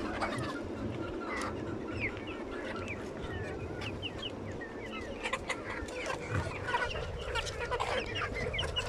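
A flock of chickens, many short clucks and calls overlapping, growing busier about halfway through, over a steady low background noise.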